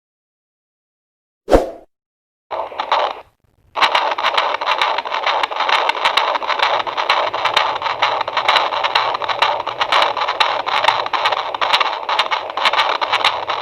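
Handheld fetal doppler's speaker: a sharp click, then a short burst of static, then a steady hiss with a quick regular pulsing, about two to three beats a second, the unborn baby's heartbeat picked up by the probe.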